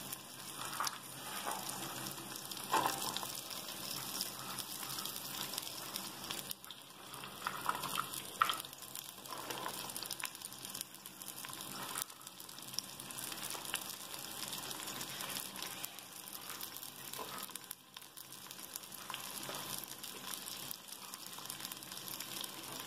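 Chopped carrots, green peas and beans sizzling steadily in melted butter in an aluminium pressure cooker, with a few brief knocks about 3 and 8 seconds in.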